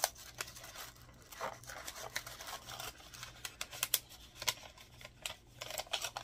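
Rustling and crinkling of plastic packets and papers of scrapbook supplies being rummaged through by hand, with many irregular small crackles and clicks.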